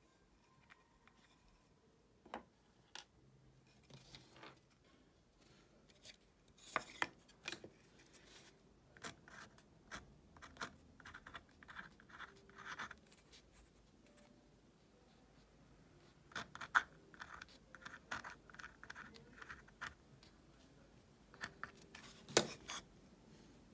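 Faint pencil writing on a plywood disc: short scratchy strokes in two runs. Near the end comes a single sharp knock, as the wooden disc is set down on the bench.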